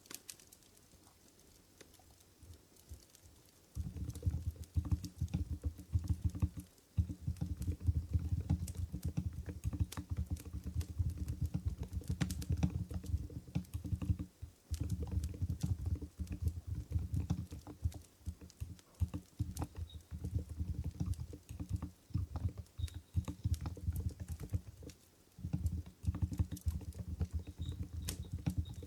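Fast continuous typing on an Mstone Groove GV10 keyboard with silent Coral 45 g switches: deep, muffled keystrokes starting about four seconds in, with a few short pauses.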